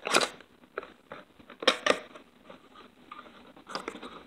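Cardboard trading-card booster box being pried open by hand: a few short, sharp cardboard crunches and tears, the loudest just after the start and two close together in the middle, with lighter rustling and scraping of the lid near the end.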